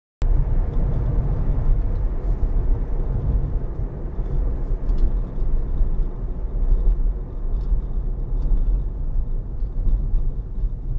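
Steady low road and tyre rumble inside a Tesla Model Y cabin while driving; the car is electric, so there is no engine note. The sound cuts in abruptly just after the start.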